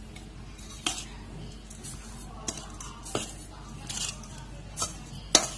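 A metal spoon stirring steamed rice-flour puttu and sugar in a stainless steel bowl, with soft scraping and about six irregular sharp clinks of the spoon against the bowl; the loudest clink comes near the end.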